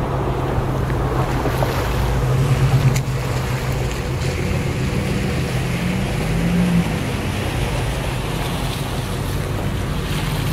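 Four-wheel-drive SUVs driving slowly through shallow floodwater: engines running, with a rise in engine pitch between about five and seven seconds in, over water sloshing and splashing and wind noise on the microphone.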